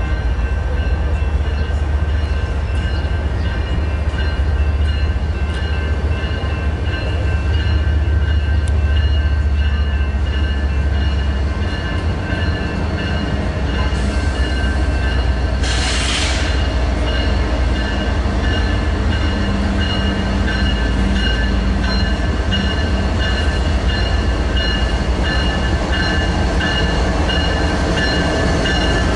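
Train running on the rails: a steady low rumble with several steady high tones over it, and a short hiss about halfway through.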